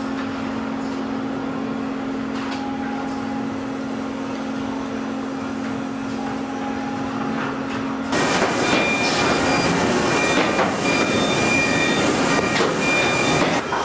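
Machinery of an automated car body-welding line: a steady low electrical hum for about eight seconds, then a sudden change to louder, busier mechanical noise with an intermittent high whine as robotic welding equipment works on the body.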